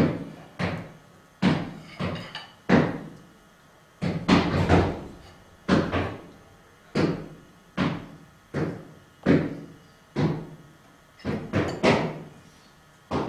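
A series of sharp knocks or thumps, irregularly spaced at roughly one a second, each ringing out briefly.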